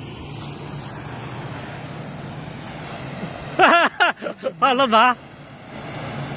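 Steady low engine hum with a noisy hiss, broken about three and a half seconds in by a loud, wavering human voice that calls out for about a second and a half.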